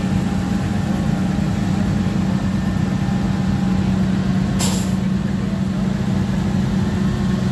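A race car engine idling steadily with a low, even drone. About four and a half seconds in there is a brief, sharp hiss.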